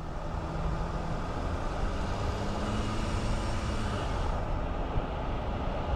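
Vehicle running at low speed along a street, with a steady low engine hum under tyre and road noise. A higher hiss swells and then fades about four seconds in.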